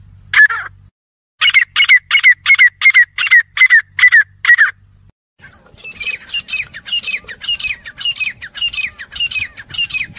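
Grey francolins calling. First comes a run of about nine sharp, evenly spaced notes. After a short pause a faster, higher-pitched run of notes follows and continues to the end.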